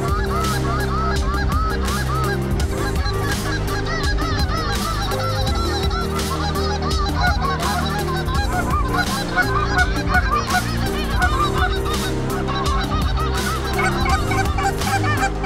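Many Canada geese honking and clucking at once, short calls overlapping in a continuous chorus.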